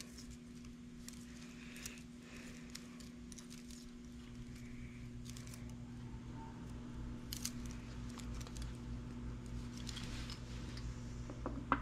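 Faint small metallic clicks and rustles of a feeler gauge set's steel blades being fanned out and slid into a piston ring's end gap in a cylinder bore, with a sharper click near the end. A steady low hum runs underneath.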